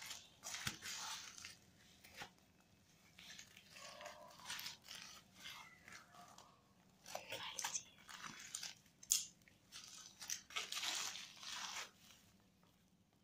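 Scissors cutting through a plastic bubble mailer and the plastic crinkling as it is handled and pulled open, in irregular bursts with short pauses. A sharp click about nine seconds in.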